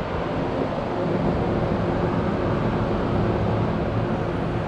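A steady mechanical hum over a rumble of noise. Its pitch holds even from about a second in.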